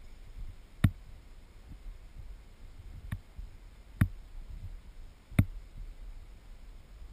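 Three sharp clicks about one, four and five and a half seconds in, with a weaker one near three seconds, over a faint low rumble.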